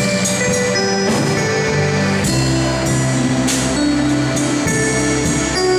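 Instrumental music with a drum beat, a steady bass line and held notes, without singing.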